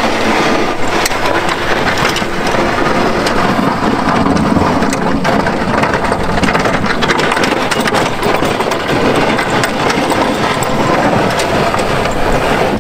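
Chevrolet Silverado pickup's engine running as its front-mounted plow blade pushes and scrapes snow along frozen ground, with steady crunching and many small crackles of snow and grit under the blade and tyres.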